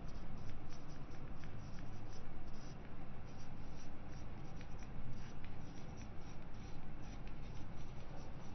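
Marker pen writing on a whiteboard: a quick, irregular run of short squeaks and scrapes from the pen strokes, over a low steady hum.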